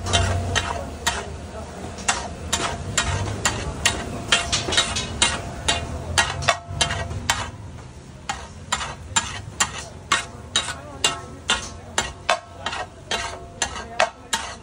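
Metal spatula repeatedly striking and scraping a hot pan while mixing street-food masala, about two to three sharp metallic clinks a second over a steady sizzle.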